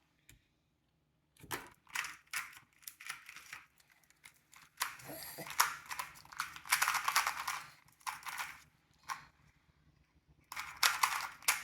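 2x2 speed cube being twisted by hand, a dense run of quick plastic clicks and clacks as the layers turn. The clicks come in irregular bursts with short pauses, from a scramble and solve.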